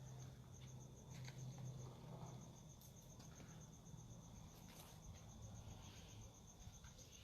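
Faint cricket chirping, a high-pitched, evenly pulsing call that keeps going, over a low hum and a few soft ticks.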